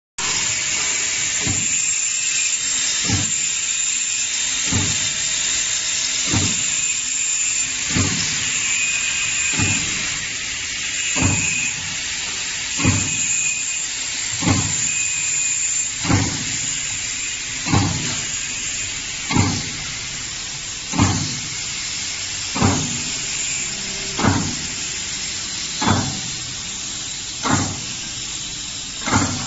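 Biscuit dough sheeting and cutting machine running with a steady mechanical hiss, and a short stroke of the cutter about every one and a half seconds as it cuts rounds from the dough sheet.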